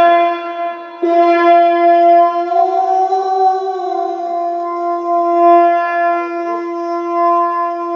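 A male Quran reciter's voice holding one long, high melodic note in recitation. It starts after a short breath about a second in, lifts slightly in pitch around the middle and settles back.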